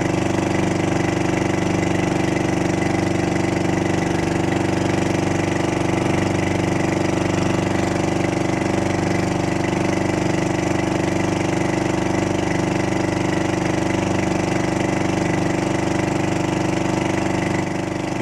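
Outrigger fishing boat's (bangka's) engine running steadily under way at cruising speed, with water rushing past the hull and outrigger.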